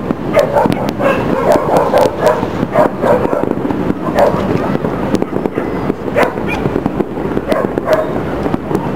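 Aerial fireworks popping and crackling in the distance, many sharp reports across the whole stretch, while a dog barks in short repeated bursts, most in the first few seconds and again twice later.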